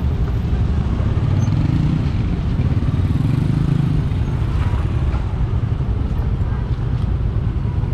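A road vehicle's engine and tyre noise while driving along a rough, potholed road, a steady low rumble.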